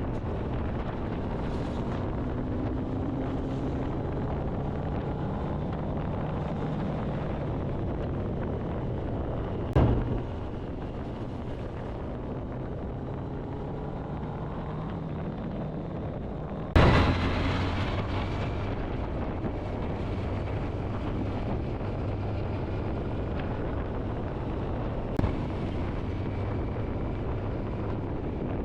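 Wind buffeting the microphone of a Kawasaki Ninja ZX-10R sportbike ridden at highway speed, with the bike's inline-four engine running steadily underneath and its pitch rising now and then. Two sudden loud bursts of noise break in, about a third of the way through and just past halfway, with a smaller one near the end.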